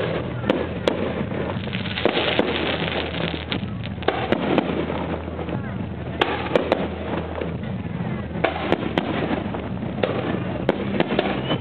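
Aerial fireworks bursting in a rapid, irregular string of sharp bangs over continuous crackling.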